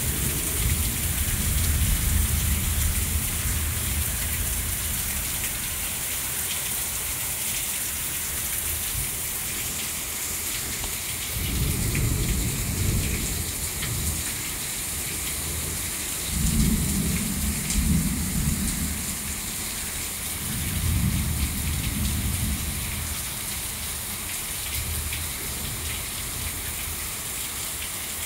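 Heavy rain pouring steadily, with four low rolls of thunder lasting a few seconds each: one near the start and three more close together around the middle and later.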